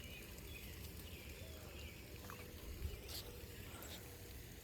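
Faint outdoor ambience: a low wind rumble on the microphone with a few faint, short chirps and one soft knock about three seconds in.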